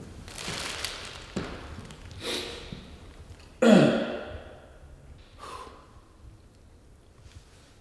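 A man taking a few deep, audible breaths in and out, the loudest a forceful exhale about three and a half seconds in.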